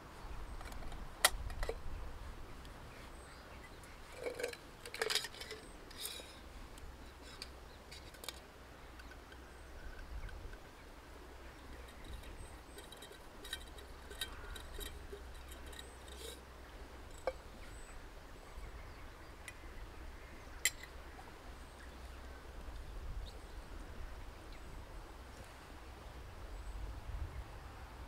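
Scattered light clicks and metallic clinks of metal camp gear being handled, one sharp click about a second in and a cluster a few seconds later, over a low steady rumble.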